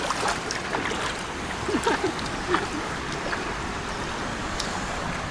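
Steady rushing of a shallow river flowing over a stony bed.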